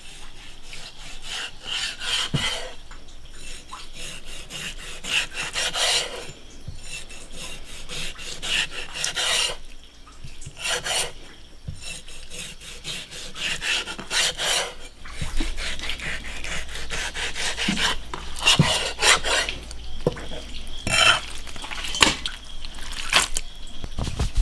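Kitchen knife slicing sturgeon fillet on a wooden chopping board: irregular scraping strokes of the blade through the flesh and against the board.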